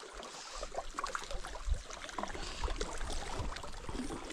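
Choppy water splashing and lapping in strong wind, with wind rumbling on the microphone and scattered small clicks.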